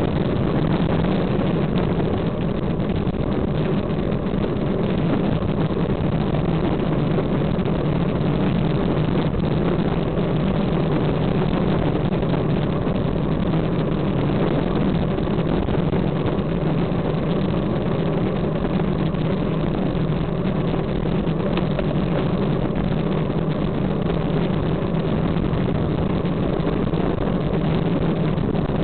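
Steady rush of wind and tyre rumble on the microphone of a camera mounted on a moving bicycle, with no change in level throughout.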